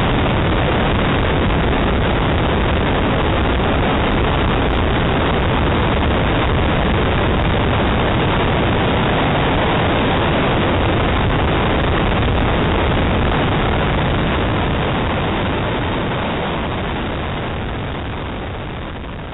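Ford Escort RS2000 being driven through a slalom, heard from a roof-mounted camera as a loud, steady noise of wind on the microphone mixed with engine and road noise, fading out over the last few seconds.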